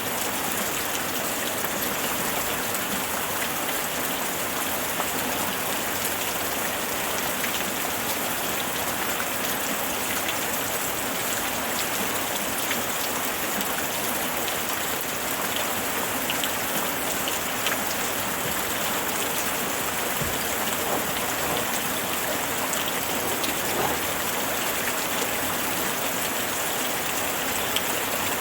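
Steady rainfall, an even hiss of rain with scattered individual drops ticking on a surface.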